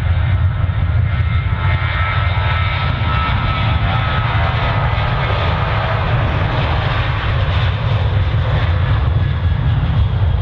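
Jet engines of a Ryanair Boeing 737-800 (CFM56 turbofans) running loud and steady as the airliner rolls along the runway past the listener, a deep rumble under a steady whine.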